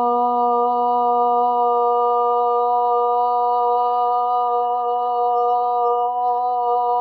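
A voice holding a long, loud 'ah' on one steady pitch: a slow full exhale toned aloud in yogic sound breathing.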